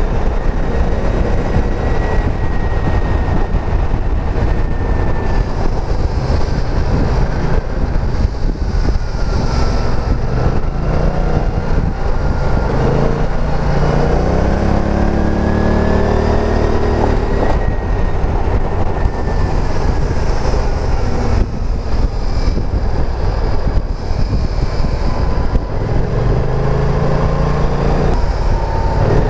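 BMW C650 GT maxi-scooter's parallel-twin engine under way on a winding road, its note rising and falling as it speeds up and slows through the curves. Heavy wind rumble on the microphone, with a thin high whine that drifts slowly up and down.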